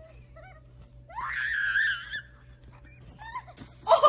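A high-pitched scream, held for about a second and wavering, followed near the end by a short loud vocal outburst.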